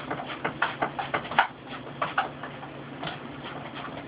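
Quick, irregular light clicks and taps, several a second, as slices and a utensil knock against a glass baking dish while eggplant is layered in. A faint steady hum runs underneath.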